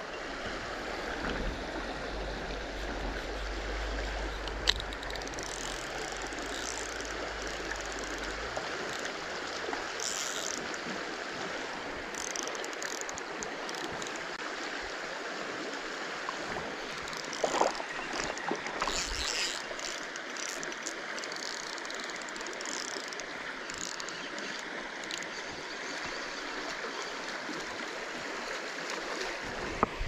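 Shallow, gravel-bed river running over a riffle: a steady rush of flowing water. A low rumble sits under it for the first several seconds, and a few brief knocks and rustles come around the middle.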